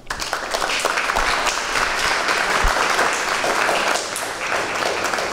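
Audience of children and adults applauding at the end of a story reading: many hands clapping, starting suddenly and keeping up steadily.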